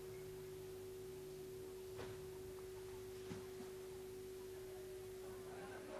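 A faint, steady pure tone held at one mid pitch, with a couple of soft clicks.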